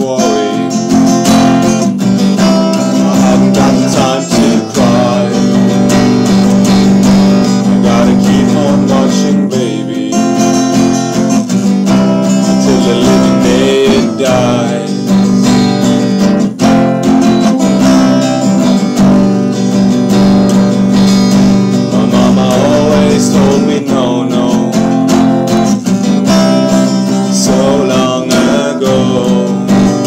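Acoustic guitar strummed without a break, in repeated chords.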